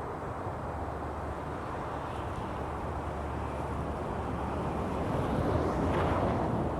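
Steady rumble of road traffic passing, growing a little louder about five seconds in.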